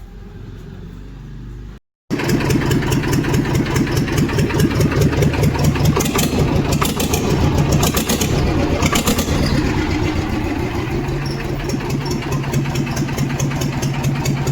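Swaraj 724 tractor's two-cylinder diesel engine running with its silencer removed, giving a loud, fast, open exhaust beat. About two seconds in there is a short cut, and the beat comes back much louder, strongest around the middle before easing slightly.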